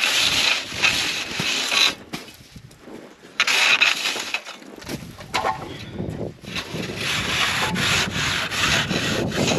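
Old pruning saw on a long wooden pole sawing and scraping through thick packed snow at a roof edge in rough rasping strokes, a homemade snow-removal tool cutting the snow load loose. The strokes come in three spells, with short pauses about two and five seconds in.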